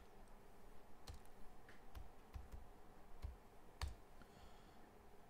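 Faint computer keyboard and mouse clicks as a short word is typed and selected: about seven separate clicks, spaced irregularly.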